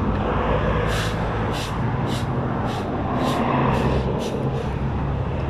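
Stick broom swishing across asphalt in regular strokes, about two a second, starting about a second in, over the steady engine rumble of passing road traffic.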